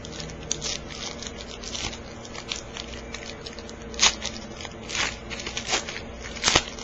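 Crinkling of a plastic trading-card pack wrapper and cards being handled: a string of short, crisp crackles, with a few louder rips and snaps in the second half.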